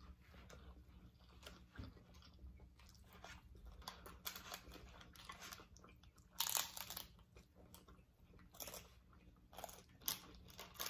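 Hard taco shells crunching as they are bitten and chewed, in a series of short crunches with quiet chewing between. The loudest crunch comes about six and a half seconds in.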